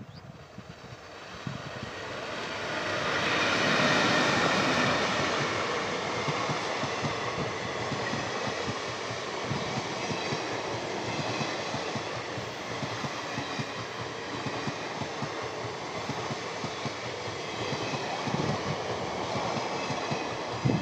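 Indian Railways WAP-4 electric locomotive hauling a passenger train past at about 50 km/h. The sound swells as the locomotive draws level about four seconds in. Then the coaches roll past steadily.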